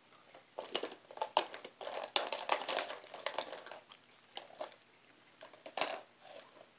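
Dog working a plastic treat puzzle toy with its muzzle: a run of irregular plastic clicks and rattles, dense through the first half, then sparser, with one sharper click near the end.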